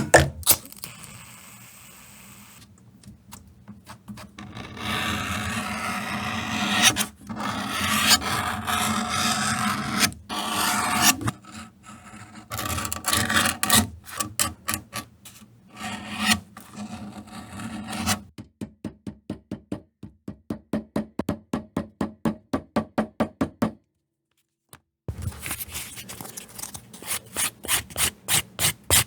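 Leather being worked by hand with rubbing, rasping strokes, in several separate stretches. From about the middle, the strokes come quick and even, about three a second, broken by a brief pause near the end.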